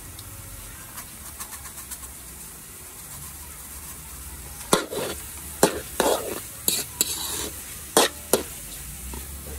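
Metal spatula scraping and knocking against a metal wok as pork and egg are stir-fried over a faint steady sizzle. The scrapes come in a quick run of about seven strokes starting about halfway through.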